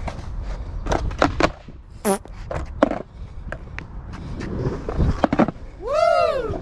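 Skateboard decks knocking and clacking on concrete: a run of sharp clicks and knocks with a few duller thuds as a board is handled and stepped onto. About six seconds in comes a short tone that rises and then falls in pitch.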